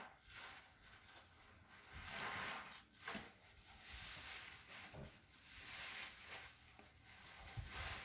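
Faint, repeated scrubbing strokes while cleaning, each a swell of about a second, with a sharp click about three seconds in.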